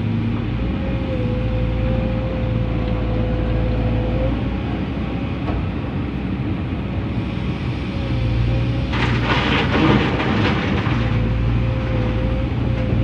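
Komatsu PC200-10 hydraulic excavator running under load, its six-cylinder diesel engine with a steady hum and a wavering hydraulic whine. About nine seconds in, a louder rattling rush lasts some two seconds.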